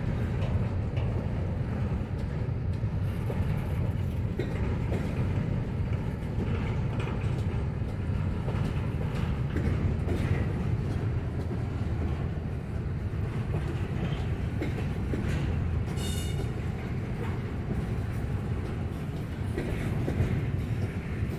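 Norfolk Southern freight train of container-laden well cars rolling past: a steady low rumble of steel wheels on rail with light clicking over the rail joints. A brief high squeak comes about sixteen seconds in.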